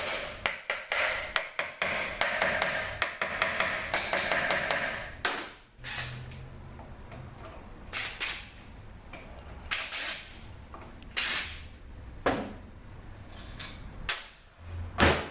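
Ratchet wrench undoing the transmission's oil pump bolts: a dense run of rapid clicks for about five seconds, then scattered clinks and knocks of metal parts being handled.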